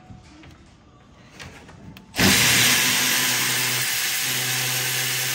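Milwaukee cordless electric ratchet running steadily, starting about two seconds in, spinning a deep-well 13 mm socket to back off the nut on an AC line fitting.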